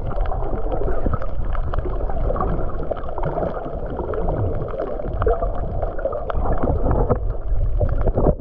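Underwater sound picked up by a submerged camera: a muffled, steady rush of water with many small scattered clicks and crackles.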